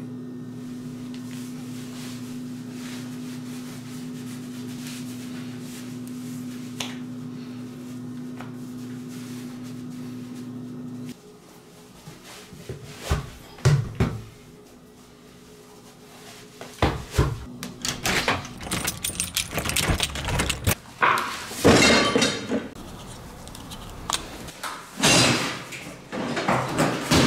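A steady low hum that cuts off abruptly about eleven seconds in. After it come scattered knocks and thuds, then a cardboard box being lifted, turned and set down, with repeated rustling and thumps.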